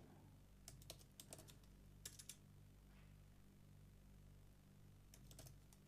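Faint keystrokes on a computer keyboard, typing in a few short clusters with pauses between, over a low steady hum.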